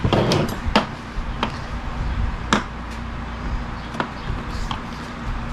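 Scattered light clicks and taps of small tools and RC car parts being handled, about six in all, with a brief rustle at the start, over a steady low hum.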